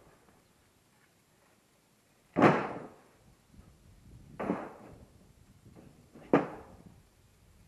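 Three sharp wooden knocks about two seconds apart, each dying away over about half a second, from pieces of hickory slab firewood being handled and knocked together.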